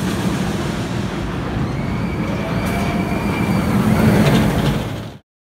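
Raging Bull steel roller coaster train rumbling along the track overhead, growing louder as it passes about four seconds in, then cutting off abruptly.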